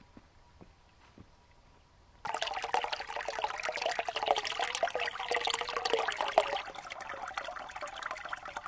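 Spring water pouring from a spout into a stone trough, splashing and gurgling. It comes in suddenly about two seconds in after a quiet start with a few faint ticks, and eases a little near the end.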